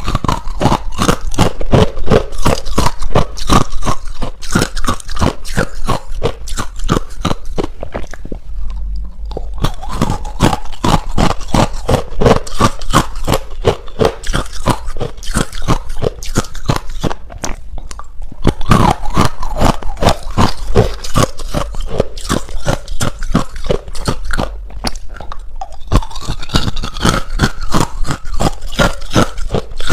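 Ice being bitten and chewed close to the microphone: a fast, nearly continuous run of loud crunches, with a few brief pauses.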